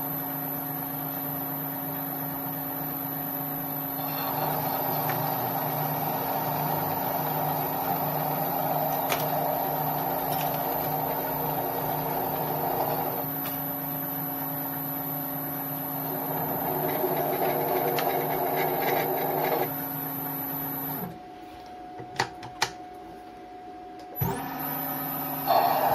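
Mini lathe running with a steady motor hum and a high whine while its tool cuts a steel bar, the cutting noise swelling and fading twice. About 21 seconds in the lathe stops, a few sharp clicks follow, and near the end it starts up again.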